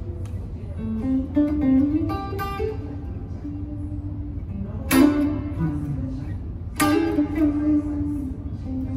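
Gibson Les Paul Studio Tribute electric guitar played on its neck pickup, volume at half and tone full up. A quick run of single notes, then two strummed chords just under two seconds apart, each left to ring, over a steady low hum.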